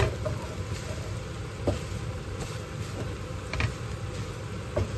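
A wooden spatula stirring shredded chicken and sweet corn filling in a frying pan, with a few light knocks against the pan, over a steady low hum.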